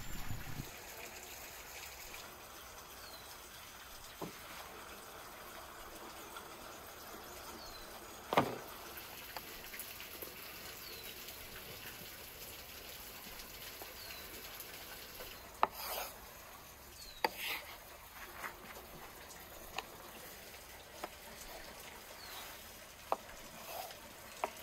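Steady trickle of running water, with faint, high, falling chirps every couple of seconds. One sharp knock about eight seconds in, then scattered taps and clicks as a knife cuts and hands work rolled dough on a floured wooden board.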